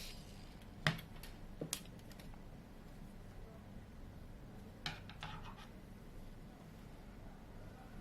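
A few sharp clicks and light scraping of small tools working on a smartphone's parts during disassembly: the loudest click about a second in, another near two seconds, and a short cluster about five seconds in.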